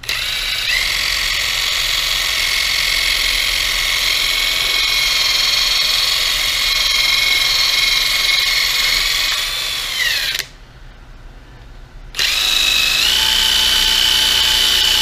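Cordless drill spinning a foam polishing pad on the clear plastic lens of a gauge cluster: a steady high whine that winds up just after the start and winds down about ten seconds in. After a pause of under two seconds it starts again and steps up in speed a second later.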